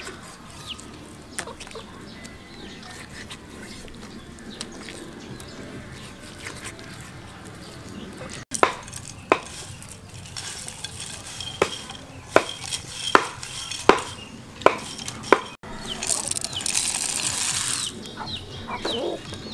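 Kitchen handling sounds in three parts: a knife cutting raw goat meat on a wooden board, then roasted peanuts worked by hand in a ceramic bowl with a run of sharp clicks about every second, then near the end a brief rush of peanuts poured from the bowl into a stone mortar.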